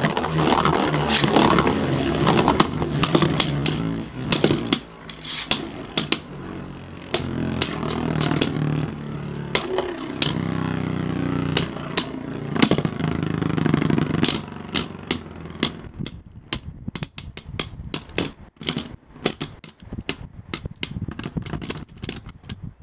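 Two plastic-generation Beyblade spinning tops, Dragoon G and Apollon, spinning against each other in opposite directions in a clear plastic stadium: a steady whir broken by many sharp clicks as they strike each other. About sixteen seconds in the whir fades, leaving scattered clattering clicks as the tops wobble and run down to a stop.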